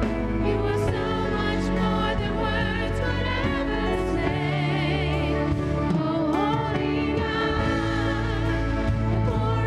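Live church worship music: several singers on microphones singing a slow song with held, vibrato-laden notes, backed by a band with drums and electric guitar under sustained low chords.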